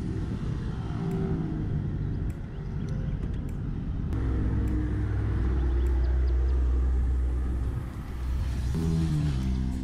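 Steady low rumble of wind and road noise on the microphone of a camera riding on a bicycle, mixed with the engines of motorcycles and cars travelling alongside; the rumble swells in the middle.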